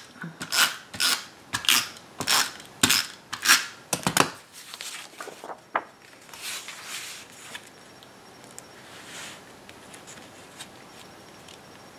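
Cardstock being handled and pressed down while a mat is attached to a card base: a run of short, sharp papery rasps and taps about two a second. They die away after about four seconds, leaving a few softer rustles.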